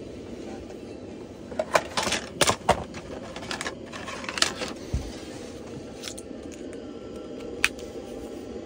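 Small hard kitchen items being handled: a run of sharp clicks and knocks from about one and a half to five seconds in, and one more click near the end, over a steady low hum.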